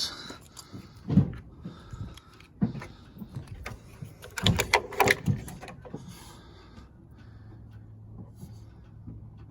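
Truck door being opened and someone getting into the cab: several knocks and clunks, loudest about four and a half to five and a half seconds in, then a faint steady low hum in the last couple of seconds before the engine is cranked.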